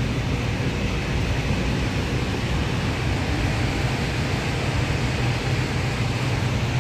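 Steady shop room tone: a low, even hum with a constant noise over it, with no distinct events.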